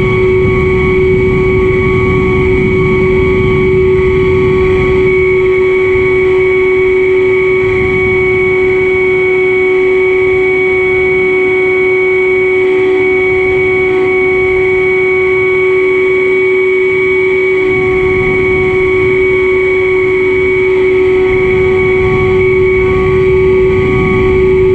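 Foam delta-wing model plane's motor and propeller running at a steady pitch, one unchanging tone with overtones, over low wind rumble on the microphone.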